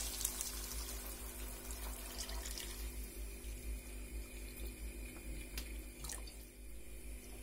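Chicken broth poured from a glass jar into a frying pan of browned chicken pieces: a steady splashing stream of liquid that grows fainter about three seconds in as the stream thins.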